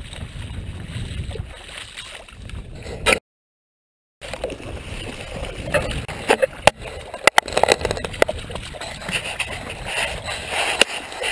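Wind rumbling on the microphone for about three seconds, then a brief dropout. After it comes an irregular run of sloshing, splashing and sharp clicks as a yellow Labrador retriever wades through shallow flooded pasture water right beside the camera.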